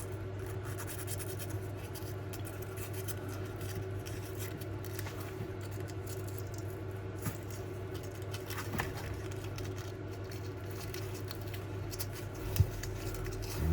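Very fine emery cloth rubbing gently around the copper commutator of a Hornby B12 model locomotive motor's armature, a steady soft scratching with tiny clicks as dirt is cleaned off the segments. A low steady hum runs underneath.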